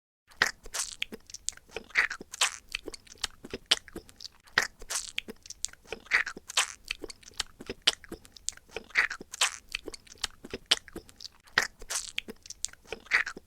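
Close-miked mouth noises: a dense run of wet clicks and smacks, with a stronger burst every half second or so.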